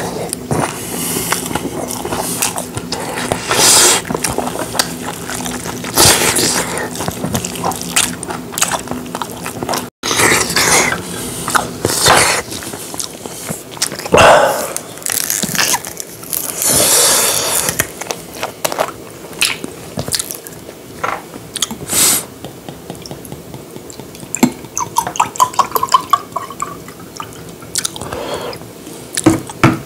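Close-miked eating: a man chewing and slurping spicy stir-fried webfoot octopus with rice, with many short wet clicks and smacks. Near the end, a drink is poured from a bottle into a glass, the pour rising in pitch as the glass fills.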